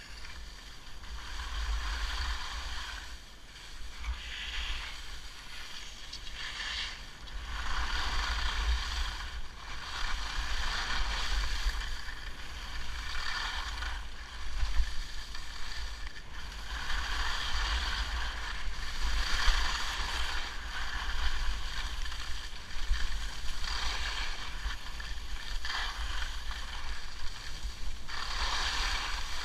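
Skis hissing and scraping over groomed snow through linked turns, the hiss swelling and fading every couple of seconds, over a steady low wind rumble on the microphone.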